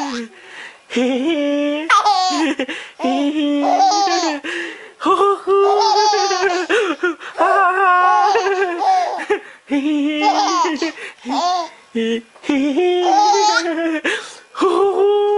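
A baby laughing in repeated bouts of belly laughs with short breaks for breath between them.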